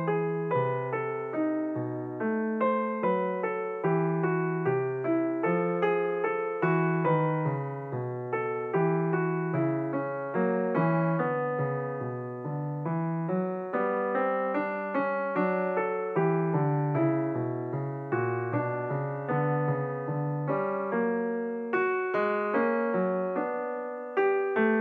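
Background piano music: a steady run of struck, decaying notes, with a melody over a stepping bass line.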